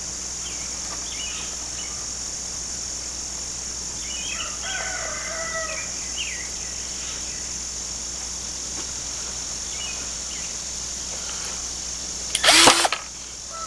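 Distant rooster crowing and chickens calling over a steady high insect drone. Near the end, a short loud noise cuts in for about half a second.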